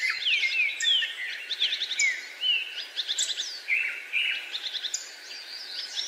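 Several songbirds singing and calling together: overlapping high whistles that slide down in pitch, short chirps and rapid trills, over a steady background hiss.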